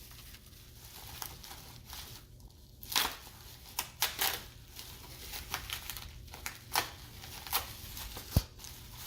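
Packing material being unwrapped by hand: irregular crinkling and tearing, with scattered sharp clicks and rustles.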